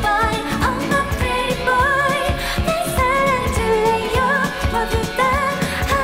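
A K-pop song: a singing voice with vibrato on its held notes over a steady pop beat.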